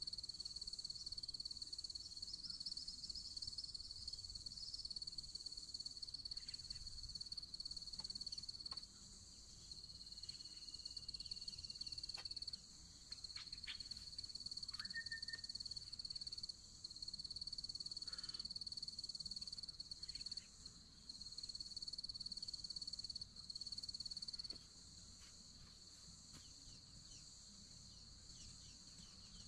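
Chorus of insects buzzing, a steady high-pitched drone with brief dips, fading to a quieter level about 25 seconds in.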